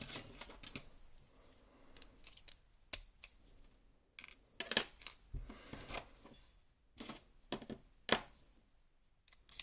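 Small metallic clicks and clinks from handling an M&C Minos lock and its picking tools. There are about half a dozen sharp, spread-out taps, with light scraping between them.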